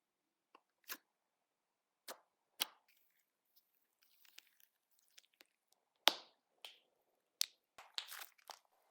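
Slime being played with by hand, giving irregular sharp pops and clicks with silence between them, the loudest about six seconds in and again about a second and a half later.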